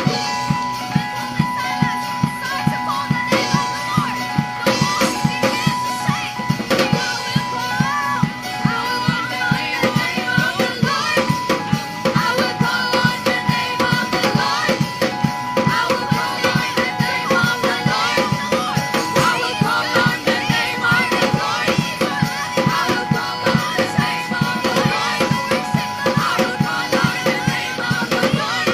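Live worship band music: a drum kit keeping a steady beat under held keyboard or instrument tones, with voices singing over it.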